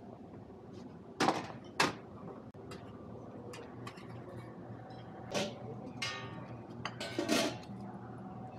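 Buffet clatter: sharp knocks and clinks of dishes and metal serving tongs, two close together about a second in and a cluster more in the second half, one with a short ringing tail, over a low steady room hum.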